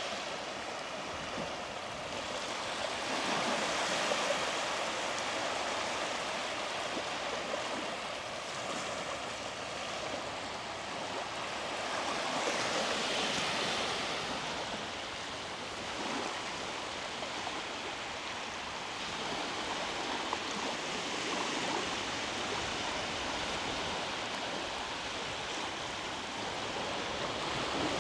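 Small sea waves breaking and washing up a beach: a steady rush of surf that swells and eases every several seconds.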